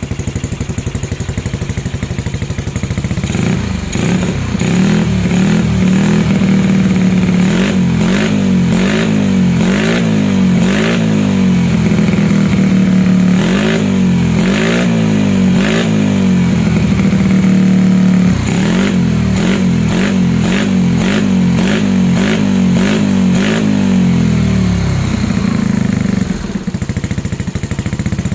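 Tuned Yamaha Mio scooter's single-cylinder four-stroke engine with an aftermarket exhaust, revved over and over. It idles at first, then a few seconds in the throttle is blipped repeatedly, the pitch rising and falling about once a second, before it settles back to idle near the end.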